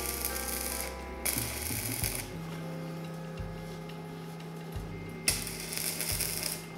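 Electric arc welding on a steel scooter frame: the arc crackles and spits in three runs, two short ones near the start and a longer one near the end, with quieter gaps between them.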